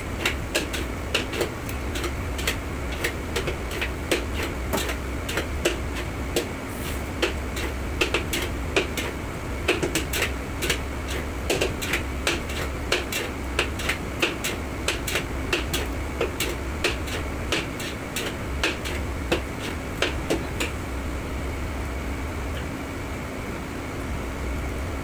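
Metal ladle clanking and knocking against a steel wok as food is stirred, about two to three knocks a second, stopping a few seconds before the end. Underneath runs a steady low hum of kitchen ventilation.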